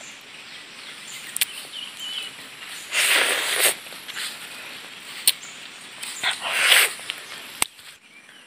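A person slurping the pulp and seeds out of a broken-open passion fruit with her mouth: two loud sucking slurps, about three seconds in and again near the end, with a few small sharp clicks between them.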